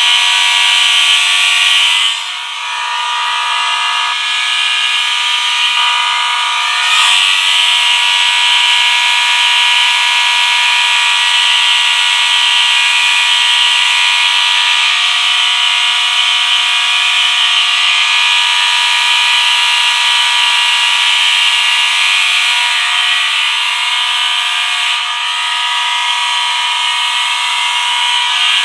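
A collection of fire alarm horns and sirens all sounding together: a dense mix of steady tones, pulsing beeps and repeated slow rising sweeps, dipping in level briefly about two seconds in. Unbelievably loud.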